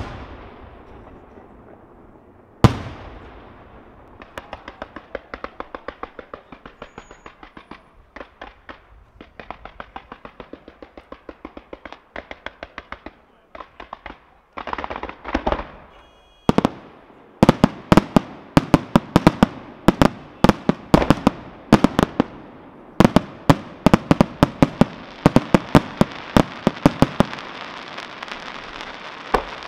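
Fireworks display: a single loud bang about three seconds in, then long runs of rapid bangs, several a second, that grow louder and denser in the second half.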